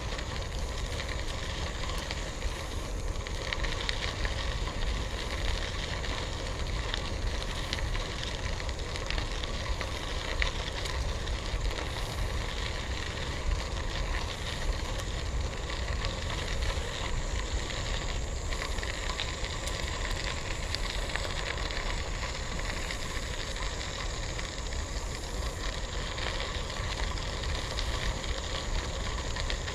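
Bicycle tyres rolling over a gravel trail: a steady crackling crunch of gravel with a low rumble underneath.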